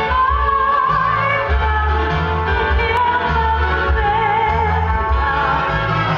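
A singer holding long, wavering notes over a live band with a heavy, pulsing bass.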